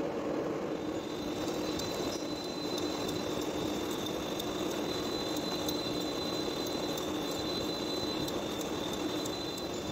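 Heavy-duty metal lathe turning a large metal gear blank, the tool cutting its face: a steady machine hum with a thin high cutting whine that sets in about a second in, and scattered light ticks.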